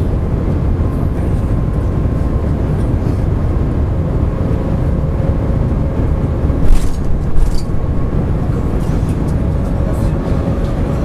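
Steady low rumble and rushing noise inside a Shanghai maglev carriage running at over 315 km/h and still accelerating, with a faint steady whine over it. Two brief louder knocks come about seven seconds in.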